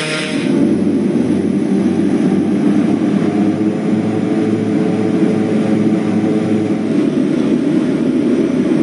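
Let L-410 Turbolet's turboprop engines running during a ground engine test, heard from inside the cockpit as a steady, muffled low drone with a regular throb.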